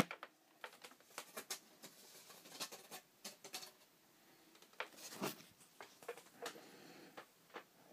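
A sharp knock as the phone is set down, then scattered faint clicks and taps of hands handling small parts.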